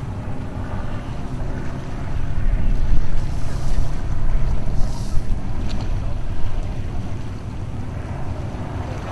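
Wind rumbling on the microphone, gusting stronger for a few seconds in the middle, with waves washing along the shore.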